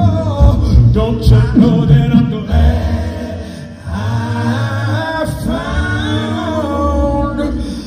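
A cappella group of mixed male and female voices singing a gospel song in harmony through microphones, over a deep low bass voice. The singing dips briefly a little under four seconds in, then the harmonies swell back and are held.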